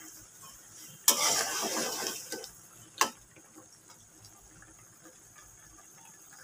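Eggplant curry bubbling in a metal pan while a metal spatula stirs it. There is a loud rush of sizzling and stirring about a second in, fading over about a second, and one sharp clink of the spatula against the pan about three seconds in.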